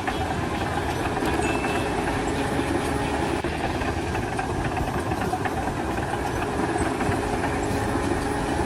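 An engine or heavy machinery running steadily, a constant rumble without clear pitch changes or impacts.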